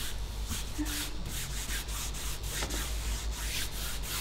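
A cloth rag rubbed back and forth over paper stretched on a wooden board, wiping paint across the sheet in quick, even strokes, about three a second.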